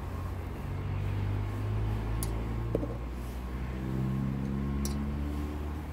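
A steady low motor hum whose pitch shifts up a little partway through, with a few light ticks and taps as eggplant slices are handled.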